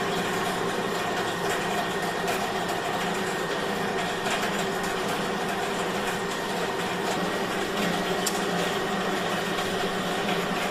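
Small electric motor running with a steady whirring hum, the kind that drives the working features of a model railway layout.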